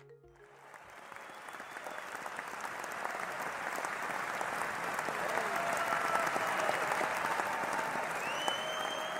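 A crowd applauding, fading in from nothing and growing louder over several seconds before holding steady, with faint cheering voices over the clapping.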